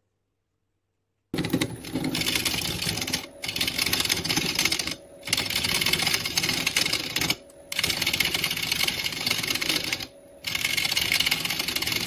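Wood lathe turning, with a gouge cutting into a spinning blank of wood offcuts cast in epoxy resin. The cut starts suddenly about a second in and breaks off four times as the tool is lifted, leaving the quieter lathe running in the pauses.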